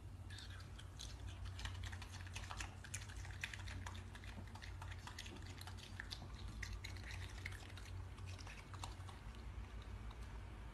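Raccoon chewing cherries with its mouth open: a dense, irregular run of small wet smacking clicks over a steady low hum.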